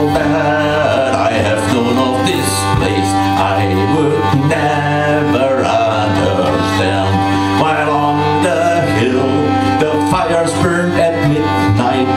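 Live folk music: a djembe played by hand and a stringed instrument playing a wavering melody over steady held drone notes.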